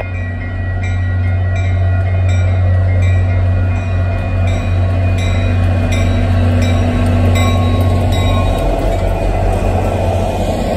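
MBTA commuter-rail diesel locomotive approaching and passing close, its engine running with a steady low drone. Grade-crossing signal bells ring with even strokes about twice a second. In the last few seconds the passing locomotive's rumble and wheel noise take over.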